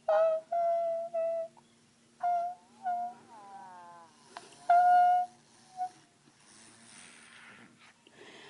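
A voice making a series of short, high-pitched, steady hums or squeaks, with one falling glide partway through, then a few seconds of faint breathy hissing.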